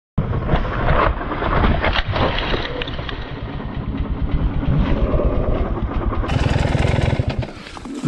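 KTM 300 EXC TPI two-stroke single-cylinder engine running hard as the rear tyre spins in loose dirt on a steep bank, then carrying on as the bike tips over onto its side.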